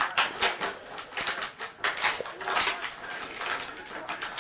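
Gift wrapping and packaging rustling and crinkling as a present is unwrapped by hand, an irregular run of quick crackles.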